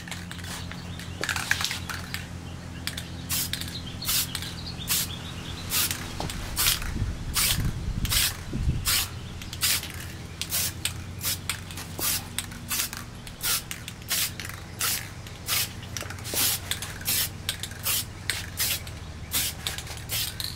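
Aerosol can of high-temperature clear coat spraying in many short hissing bursts, about one or two a second, over a brake caliper. A steady low hum runs underneath.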